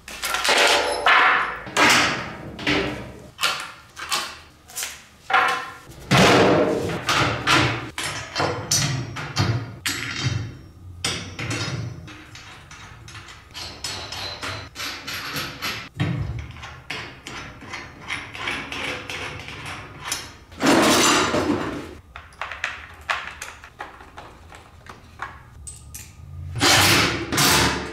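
Wheelbarrow being assembled by hand: the tub set down and turned over, wooden handles and metal leg brackets knocking against it, and small bolts and hardware clicking. An irregular string of knocks, clicks and thumps, with a few louder clattering bursts.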